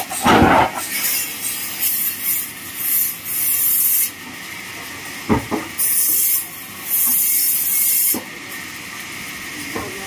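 A heavy log thuds down onto a band sawmill's steel carriage in the first second, followed by a few sharp knocks of wood and metal as it is set in place. Bursts of hissing lasting about a second each come and go in between.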